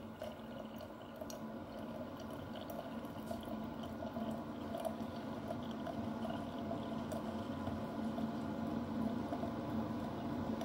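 Keurig coffee maker running, with water gurgling and bubbling through it over a steady low drone, slowly growing louder.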